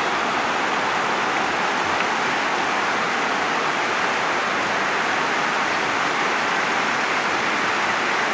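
Large stadium crowd applauding, a dense, steady wash of clapping.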